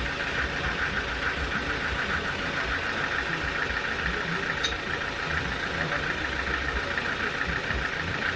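Sawmill machinery running: a steady engine drone with a rapid flutter, unbroken throughout.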